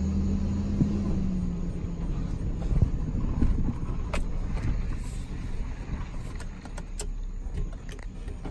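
Truck engine and rumble as the truck pulls forward a short way, its steady hum easing off after a second or two, with a few light clicks and knocks near the end.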